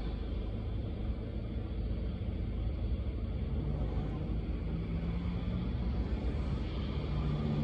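Car driving on a wet road in the rain: a steady low rumble of engine and tyres under a soft hiss of rain and road spray.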